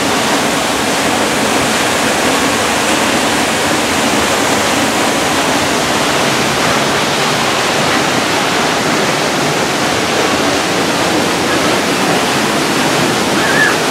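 Waterfall close by: a loud, steady rush of falling water with no breaks.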